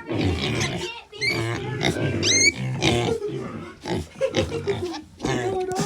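Piglets making a rapid run of short grunts and squeals, one after another, with a high rising squeal about two seconds in.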